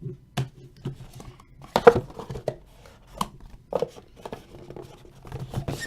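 Trading cards and their packaging being handled at a table: rustling and crinkling broken by irregular sharp clicks and taps, the loudest about two seconds in.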